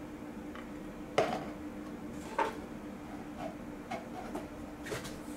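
Handling clicks and knocks from a Skymarks Supreme Boeing 737 MAX 8 model airliner being fitted onto its display stand: two sharper knocks about a second and two and a half seconds in, then several lighter clicks.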